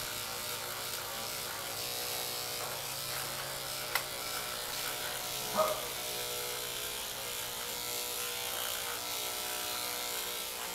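Electric pet grooming clippers running with a steady buzzing hum while shaving a standard poodle's curly leg coat. There is a sharp click about four seconds in, and a short higher-pitched sound a moment later.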